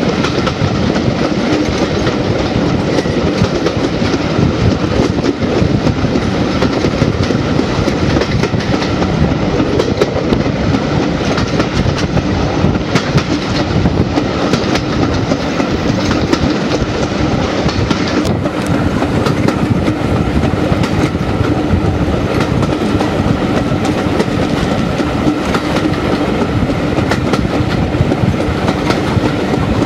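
Moving railway carriages heard from an open window at speed: a steady, loud rumble of wheels running on the track, with frequent clicks and clickety-clack over the rail.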